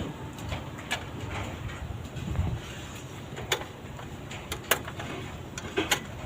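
Hand tools working on a UAZ's engine bay, giving a few scattered sharp clicks and taps on metal at irregular intervals over a low background hum.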